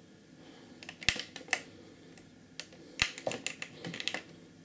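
A series of sharp clicks, two louder ones about two seconds apart with smaller ticks between, as a PC's power button is pressed with no response because the power supply's own switch is still off.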